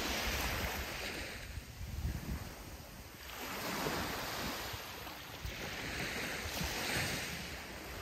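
Sea waves breaking and washing up a sandy beach. The hiss of the wash swells and fades three times, about every three seconds, over a low steady rumble of surf.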